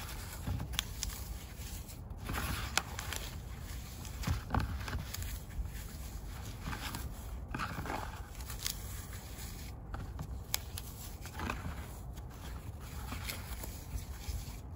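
Dry green floral foam crunching and crumbling as hands squeeze, break and stir its chunks and crumbs in a plastic tub. Irregular crisp crunches and scrapes follow one another, with sharper clicks here and there.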